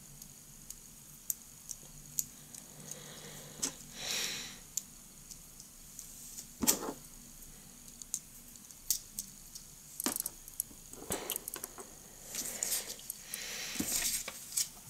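Small plastic parts of a Xiaomi fidget cube clicking and tapping as the white blocks are fitted together with red plastic pins, in irregular light clicks with a few short soft rustles.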